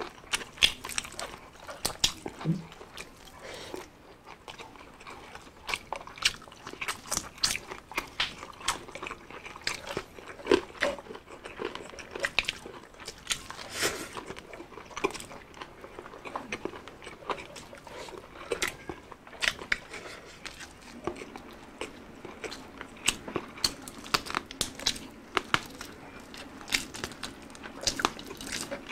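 Close-up crunching and chewing of crispy deep-fried pork, chicharon bulaklak and bagnet: many sharp, irregular crunches in quick succession between wetter chewing.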